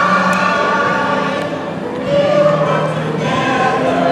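Choir singing with musical accompaniment, several voices holding long notes together, from the soundtrack of an animatronic clock-tower show.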